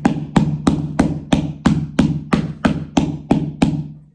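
A plastic bottle of glow-in-the-dark glue being knocked hard and steadily, about three knocks a second and a dozen in all, to force the thick, stuck glue out.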